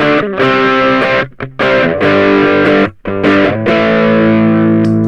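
Ibanez GAX30 electric guitar played through stacked overdrive pedals, a Klon-style overdrive into a second overdrive: distorted chords struck and cut short several times, then one chord held and left ringing near the end.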